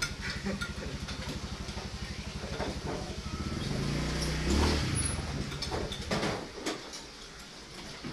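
A motor vehicle's engine running with a fast, even pulse, growing louder to about four and a half seconds in, then fading away by about six and a half seconds, as if passing by.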